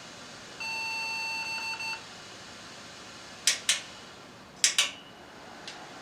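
Motherboard POST speaker sounding a single high, steady beep lasting about a second and a half: a POST beep code that is typical of a board powered on with no video card installed. Two pairs of sharp clicks follow a few seconds later.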